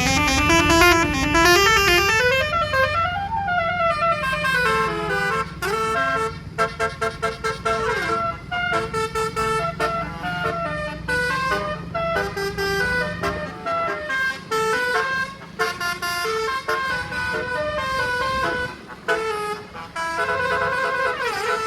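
Bus telolet horn, a set of multi-tone air horns, playing a quick melody of stepped notes. It opens with a rising then falling glide. Under it runs the rumble of the bus engine, which fades about two-thirds of the way through.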